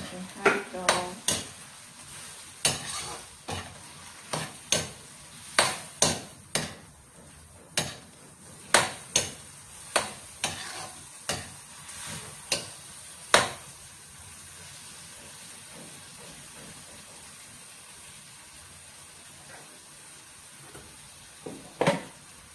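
Metal spatula scraping and knocking against an aluminium wok as chopped meat is stirred and fried, in irregular sharp strokes. About 13 seconds in the stirring stops and only a soft, steady sizzle remains, with a couple of knocks near the end.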